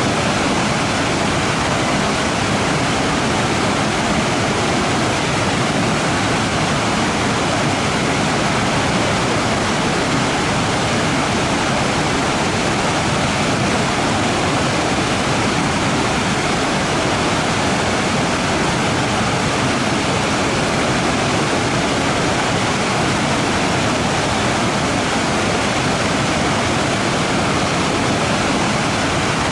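Waterfall rushing steadily, an even full-range roar of falling water without pauses or changes.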